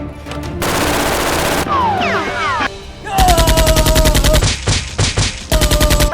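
Bursts of rapid automatic gunfire, about a dozen shots a second: a long burst about three seconds in and a shorter one near the end, over background music.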